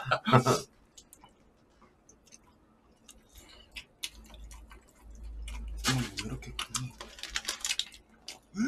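Quiet eating: scattered small clicks of chopsticks against plastic takeout trays and faint chewing, with a brief murmur of a voice about six seconds in.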